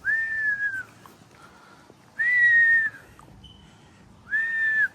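Three high, even whistle-like notes, each a little under a second long and about two seconds apart, each dipping slightly in pitch as it ends.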